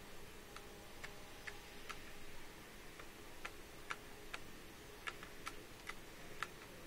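Light, sharp clicks at uneven intervals, roughly two a second, over a faint steady hum.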